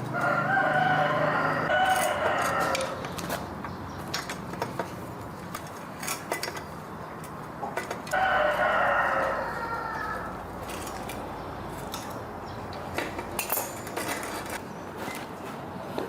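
A rooster crows twice, each crow lasting about two and a half seconds, the second about eight seconds after the first. Scattered light metallic clicks and taps come between the crows.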